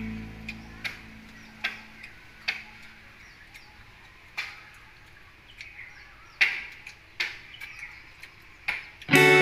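Scattered sharp clicks and smacks of a person eating rice by hand, about a dozen at irregular intervals, with faint bird chirps between them. Guitar music fades out in the first second and comes back in just before the end.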